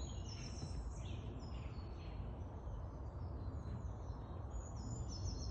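Small woodland birds singing, with quick series of high, downward-sweeping notes near the start and again near the end, over a steady low rumble.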